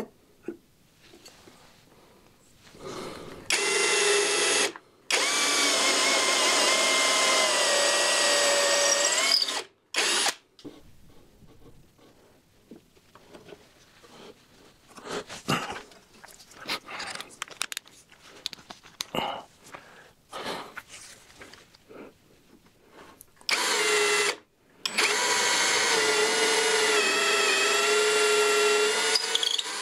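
An electric power tool's motor running in two runs of about six seconds each, its pitch sagging now and then as it works under load, with small knocks and handling clicks between the runs.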